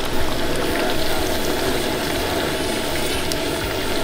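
Hot oil sizzling and bubbling steadily in a large wok as battered prawn fritters deep-fry.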